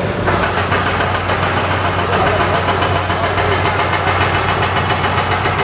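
Engine of construction machinery running steadily, with a constant low hum.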